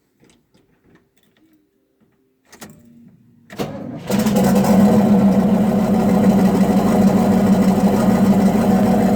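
1984 GMC 1500's turbocharged 305 small-block Chevrolet V8 being started after a pump of the gas pedal: the starter cranks briefly, and about four seconds in the engine catches and settles into a loud, steady run through a 4-inch-into-5-inch exhaust.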